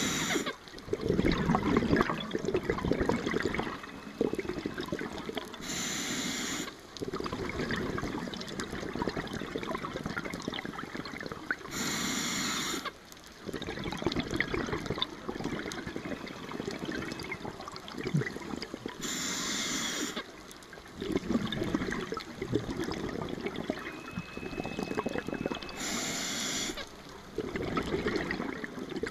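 Scuba regulator breathing heard underwater. A hiss of inhalation through the regulator comes about every six to seven seconds, five times, and the low bubbling of exhaled air fills the gaps between breaths.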